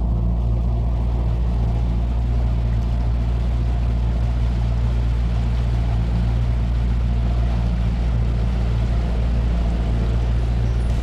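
Outboard motor of a 16-foot jon boat running steadily underway, with a steady rush of water and wind over its low drone.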